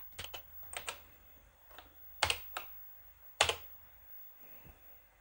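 Keys pressed one at a time on a BBC Micro keyboard: about eight separate, unevenly spaced key clicks, the loudest a little after two seconds and at about three and a half seconds in, as a modem dial command is typed and entered.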